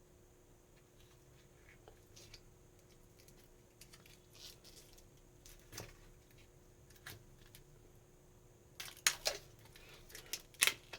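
Faint handling of a replacement phone screen glass on a work surface: scattered small clicks and rustles, then a few louder sharp clicks and taps near the end.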